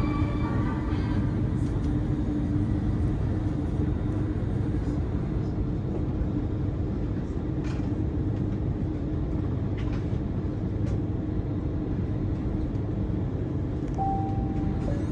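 Steady cabin noise inside an Airbus A330: an even rumble with a steady low hum from the aircraft's air and engine systems. About 14 seconds in, a single short chime tone sounds.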